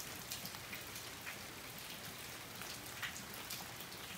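Rain falling steadily: an even hiss with scattered sharp ticks of single drops.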